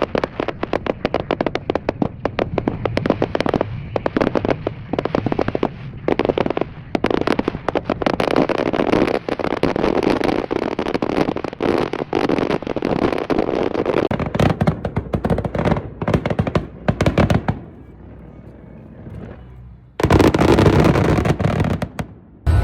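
Fireworks going off in a dense, rapid string of bangs and crackles, thinning out about seventeen seconds in. For the last couple of seconds a loud, steady rushing noise takes over.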